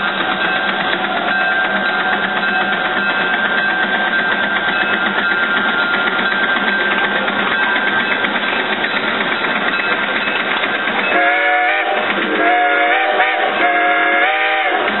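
Steam traction engine working hard under load on a pull, its exhaust chuffing rapidly and steadily while it throws sparks from the stack. About eleven seconds in, a steam whistle blows three times in quick succession, each blast about a second long.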